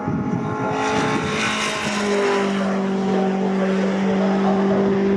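Racing pickup trucks' engines passing at speed, with a rush of noise about a second in, then a steady, held engine note from about two seconds in.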